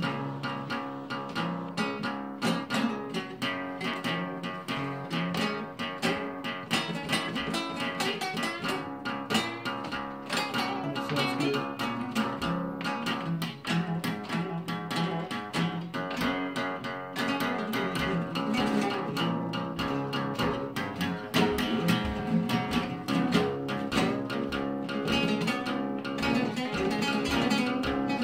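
Two acoustic guitars played together, a steady stream of quick picked notes over ringing chords.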